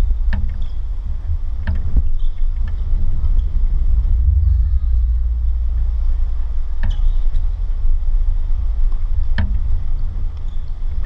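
Heavy wind rumble on the microphone, with sharp thwacks of a tennis ball being struck or bouncing: two close together near the start, one about seven seconds in, and one more a couple of seconds later.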